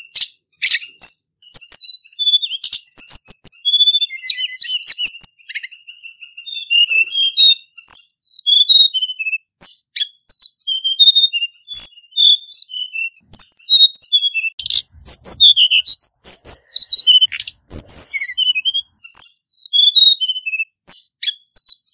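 Male hill blue flycatcher singing a rapid, nearly continuous song of short, high, sweet whistled notes that slide up and down, with a few sharp clicks in the second half.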